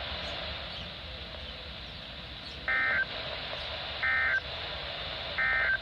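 Three short bursts of Emergency Alert System (SAME) digital data tones over NOAA Weather Radio's hiss, starting about two and a half seconds in and about a second and a half apart. They are the end-of-message signal that closes the alert test.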